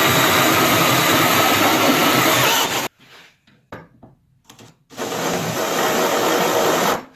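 A loud power tool run in two bursts, the first about three seconds long and the second about two, each starting and stopping abruptly.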